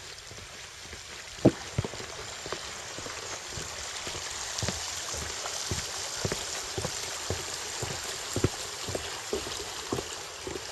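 Footsteps knocking on a wooden plank boardwalk, about two a second, over a steady rushing hiss that swells in the middle.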